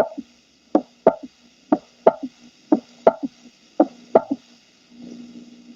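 Auscultated heart sounds with a third heart sound (S3, ventricular gallop): about one beat a second, each a sharp lub-dub pair followed closely by a softer, duller third sound. An S3 is normal only in children and in pregnancy; otherwise it can point to valve insufficiency or dilated cardiomyopathy.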